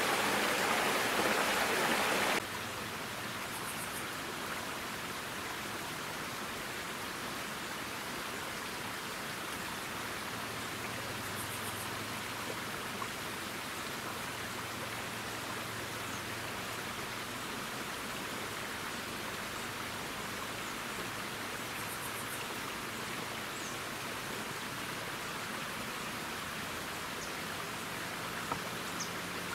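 Steady rushing outdoor background noise, louder for the first two seconds or so and then dropping sharply to a softer level, with a few faint high chirps scattered through it.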